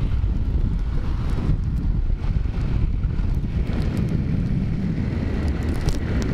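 Steady wind rumble on a microphone taped inside a rider's helmet while riding a big-bore Taotao Zummer 50cc scooter, with the scooter's engine running underneath.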